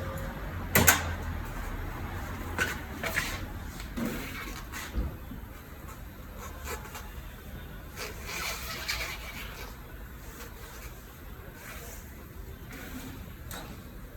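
Scattered knocks and clicks of tools and parts being handled during a car tyre change. The loudest is a sharp knock about a second in, followed by a few smaller ones and some rustling, over a steady low background hum.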